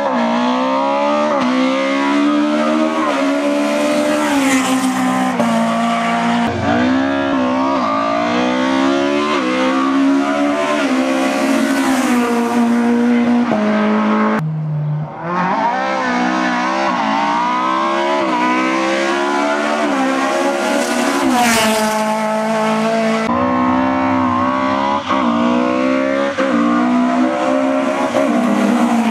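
Rally cars at full throttle on a stage, engines revving up and down through the gears, in several short clips joined by abrupt cuts.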